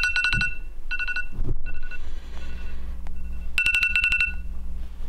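Mobile phone ringtone for an incoming call: short bursts of rapid electronic beeps, three loud bursts with fainter beeps between them, over a steady low hum.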